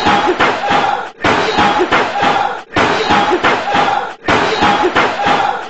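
A man's voice yelling and screaming, the same loud burst repeating about every second and a half with brief breaks between.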